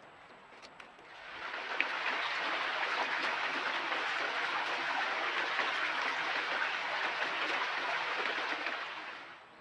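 Shallow rocky creek running with a steady burble of water. It fades in about a second in and fades out near the end.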